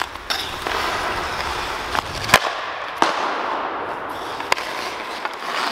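Hockey skates scraping and gliding on rink ice, with a handful of sharp, irregular clacks of a hockey stick and puck on the ice, the loudest a little over two seconds in.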